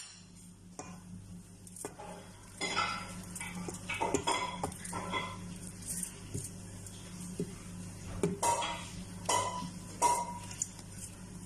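Metal utensil clinking and scraping against a dish in irregular knocks, several of them ringing briefly near the end, over a low steady hum.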